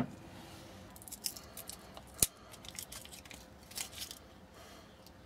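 Wrappers of vegetable stock cubes being crinkled and torn open by hand: a scatter of crisp rustles and clicks, with one sharper tap a little over two seconds in. A knock at the very start as a glass jar is set down.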